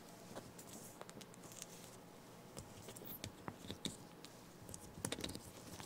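Faint, scattered light taps and rustles from a baby cinnamon capuchin monkey scrambling about on a fleece blanket, with a short cluster of clicks near the end the loudest.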